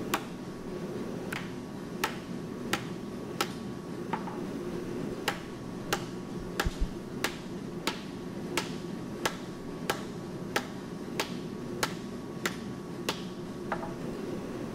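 Hammer tapping metal in an even rhythm, about three light strikes every two seconds, over a steady hum of shop machinery.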